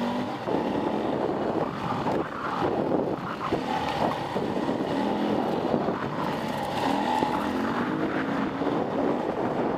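Dirt bike engine revving up and down as it is ridden along a rough trail, with wind on the microphone.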